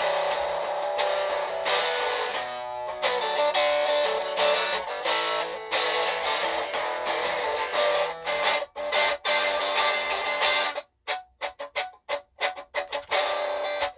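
Electric guitar playing a simple blues lick through a tiny Smokey pocket amplifier, layered with a Ditto looper pedal. The playing is dense and continuous at first, then breaks into short separate notes with gaps about three quarters of the way through.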